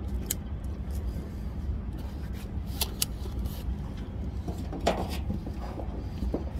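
Rustling and a few sharp clicks as a welder handles his hood and gear, over a steady low rumble.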